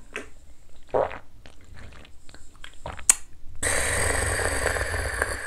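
A man swallows a shot of soju, then lets out a long, breathy throat-clearing exhale of about two seconds: the harsh "kkhaa" after a strong drink. A short sharp click from the mouth or glass comes just before the exhale.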